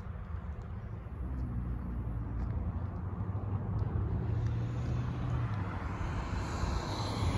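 A small SUV approaching along the road and driving past over the crossing, its tyre and engine noise building steadily and loudest near the end.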